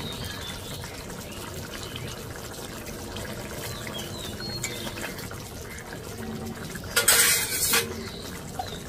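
Potato and paneer curry simmering in an iron kadai, a soft steady bubbling, with a metal spoon stirring through the gravy. About seven seconds in comes a loud scrape or clatter lasting just under a second.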